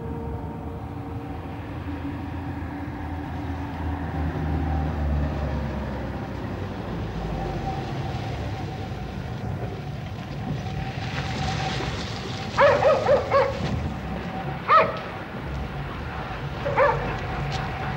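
A Citroën DS car's engine runs low as the car approaches and pulls in. About two-thirds of the way through, a dog barks: a quick run of four or five barks, then single barks twice more.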